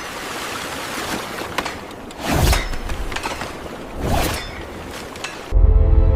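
Steady rushing noise that swells twice, then music with a heavy bass line cuts in near the end.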